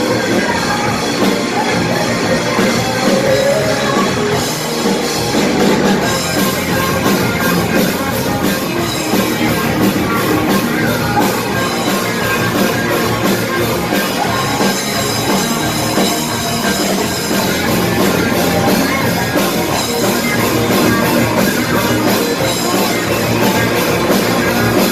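Rock band playing a loud, steady passage of a song on drum kit and guitars.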